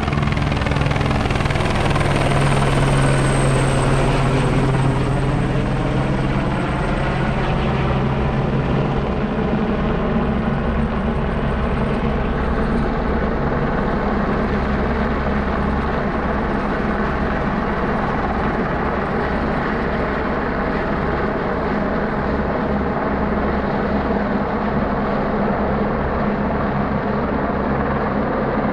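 Helicopter's rotor and engine running steadily, loudest a few seconds in and then holding, with a shifting sweep in the tone at first as it moves.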